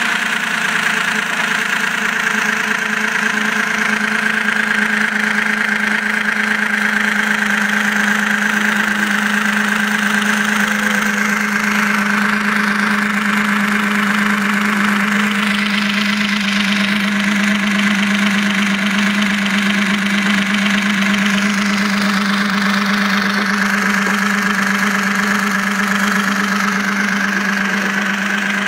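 Small electric motor salvaged from a PS3 DualShock controller, driving a Lego gear train that spins a fiber optic lamp mechanism at high speed. It gives a steady, loud whirring hum at one unchanging pitch.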